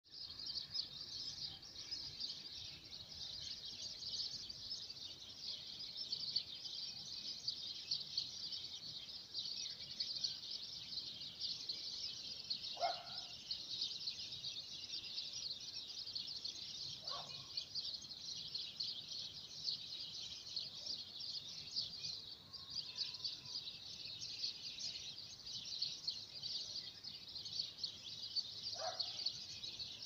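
Dense, unbroken chorus of many small birds chirping, high-pitched and steady, with a few short, lower single calls breaking in about two fifths of the way through, just past halfway, and again near the end.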